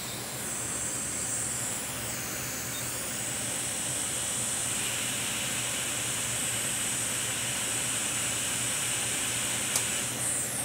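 Hot air rework station blowing a steady hiss as a shorted capacitor is heated off a MacBook logic board, with one short tick near the end.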